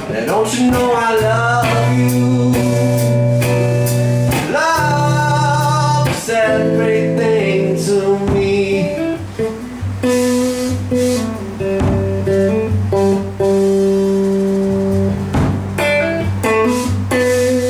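Live blues-tinged music: electric guitar with held and bending notes over a steady low bass line, with singing that has no clear words. Sharp drum hits come at the start and again near the end.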